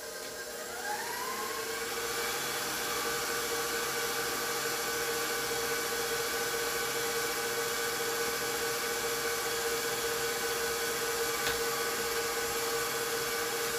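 Electric stand mixer with a wire whisk beating cake batter: the motor whine rises as it speeds up over the first couple of seconds, then runs steadily at speed.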